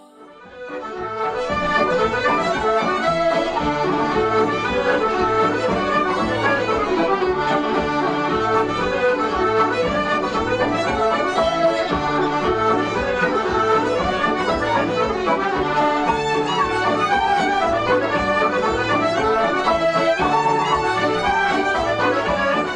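Irish traditional instrumental music led by accordion over a steady bass beat, starting about half a second in.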